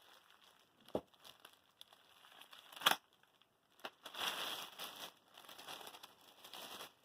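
Plastic bag wrapping crinkling and rustling as a guitar is unwrapped, with a single knock about a second in and a sharp click near three seconds.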